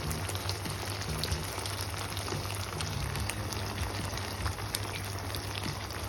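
Chicken in butter and white sauce sizzling and bubbling in a pan: a steady crackle of many small pops, with a low steady hum underneath.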